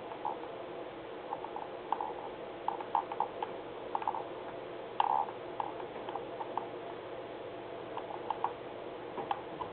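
Small clicks in short irregular clusters of two to four, like a computer mouse scroll wheel being turned through a document, over a steady low hum. The sharpest click comes about halfway through.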